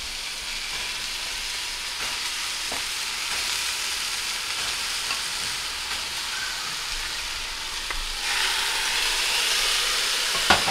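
Crumbled chorizo frying in a cast-iron skillet: a steady sizzle that grows louder about eight seconds in. There is a single sharp click near the end.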